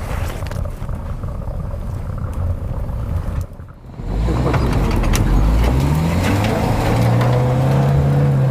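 An off-road SUV's engine pulling hard on a snowy hill climb. After a rumbling stretch with scattered knocks and a brief drop-out, the engine revs up over a couple of seconds and then holds at high revs under load.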